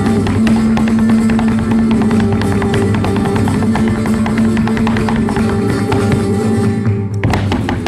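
Flamenco guitar playing a farruca over rapid zapateado footwork: the dancer's heeled shoes strike the wooden stage floor in fast runs of sharp heel and toe taps. About seven seconds in the guitar thins out and the foot strikes stand out more sharply.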